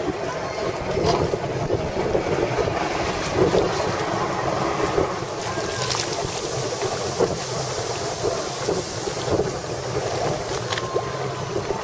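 Wind buffeting the microphone over water sloshing and splashing at the side of a boat, a steady rushing with a few sharp clicks.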